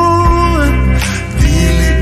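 Background song: a sung voice rises and holds a long note in the first half-second, over a steady bass line.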